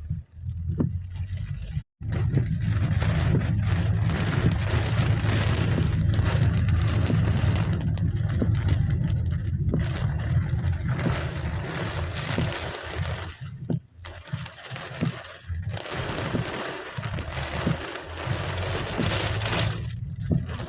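Rain falling with wind buffeting the microphone: a steady hiss over a heavy low rumble, dipping briefly a few times.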